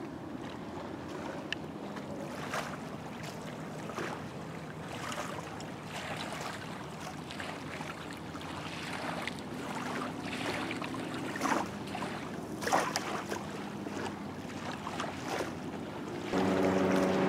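Small wavelets lapping and splashing at the water's edge, with wind on the microphone. About a second before the end a louder steady droning hum of several tones sets in.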